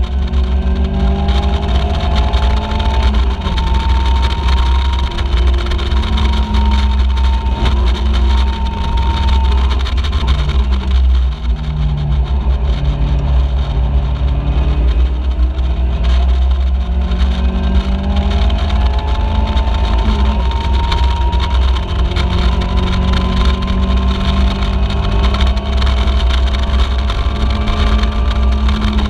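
Caterham Seven race car's engine heard from the open cockpit, revving up through the gears in long rising pulls, dropping to lower, steadier revs around the middle before pulling hard again near the end. A heavy rumble of wind buffets the microphone throughout.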